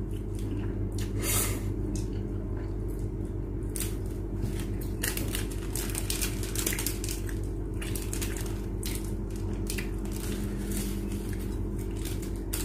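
Small scattered clicks and crackles from two people eating instant noodles: forks against ceramic plates, slurping and chewing, and a chili-powder sachet being handled and torn. A steady low hum runs underneath.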